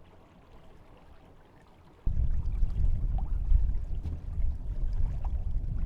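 Sailboat under way: a loud, uneven low rumble of wind and water noise. It is absent for the first two seconds and comes back abruptly just after two seconds in, with faint splashy ticks over it.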